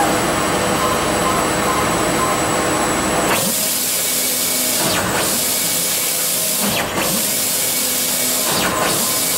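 Miyakoshi MTP-series wide-format textile printer running: a broad steady machine whir, then from about three seconds in a loud airy hiss that drops out briefly about every two seconds.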